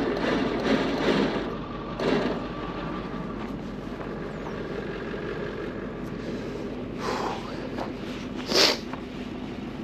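A vehicle engine running steadily, louder with rumbling noise in the first couple of seconds, with a short sharp sound about a second before the end.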